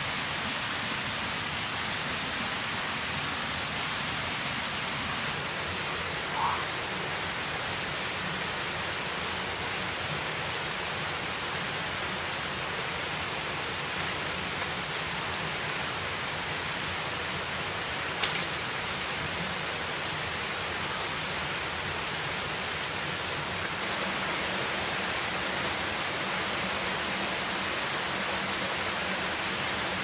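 Rainforest ambience: a steady hiss of the wet forest, with an insect chirping in quick, even pulses that start about six seconds in and carry on, and a few faint knocks from handling bamboo.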